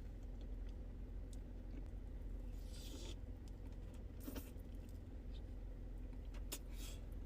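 A few short crackles and scrapes from a fancy pastry being handled and eaten, over a steady low hum.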